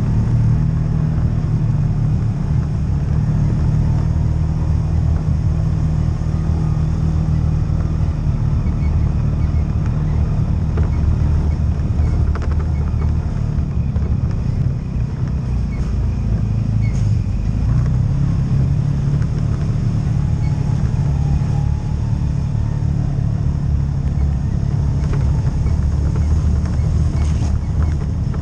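CFMoto UForce side-by-side's engine running under way on a gravel trail. It eases off for a few seconds about halfway, then pulls again, with scattered small clicks from stones under the tyres.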